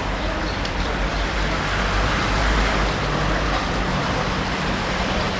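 Street traffic noise with a steady low rumble; a motor vehicle passes close, loudest about halfway through.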